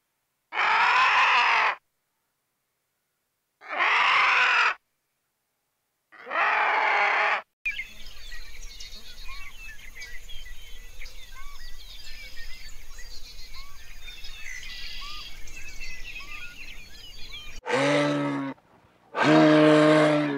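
Three short, loud animal calls, each cut off into dead silence. Then about ten seconds of birds chirping over a faint low hum, and two lower, deep-pitched animal calls near the end.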